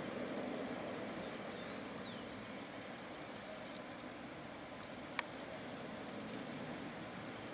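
Distant Boeing 777-200F jet engines at taxi power, a low steady rumble as the freighter turns onto the runway, under a steady fast pulse of insects chirping. There are a couple of short bird chirps about two seconds in, and a single sharp click about five seconds in.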